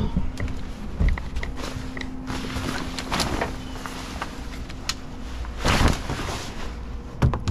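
Handling noises as a boat's canvas cover is pulled back and a fibreglass hatch is opened: rustling, scattered knocks and footsteps. The loudest noise, a brief scraping clatter, comes about six seconds in.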